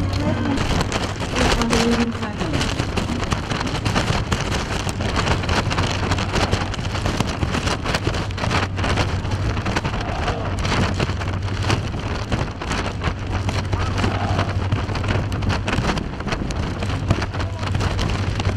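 Steady rushing noise with a low, even hum under it: wind across the microphone on an open ship's deck, over the ship's engine hum.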